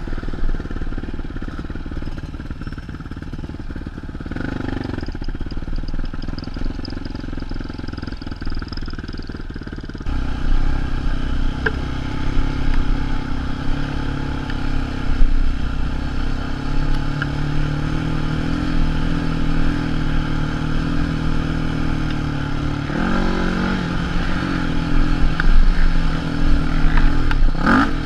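Sport quad (ATV) engine running under way along a dirt trail, steady, with a clatter from the machine. The sound cuts abruptly to a louder engine about ten seconds in, and the engine note dips and climbs again about five seconds before the end.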